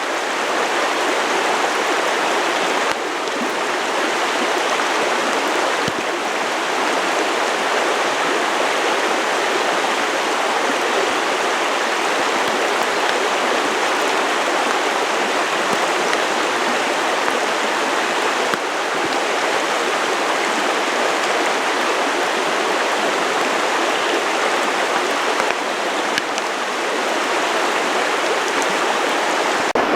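Creek water rushing steadily, an even, fairly loud wash of flowing water.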